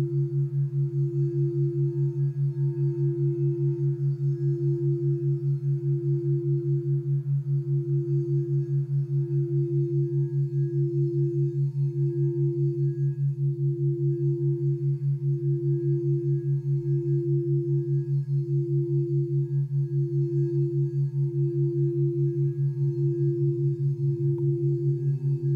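Crystal singing bowl rubbed around its rim, holding one steady ringing tone that swells and fades about every second and a half. Under it runs a louder, lower background entrainment tone that pulses several times a second. Near the end a second, lower bowl tone joins.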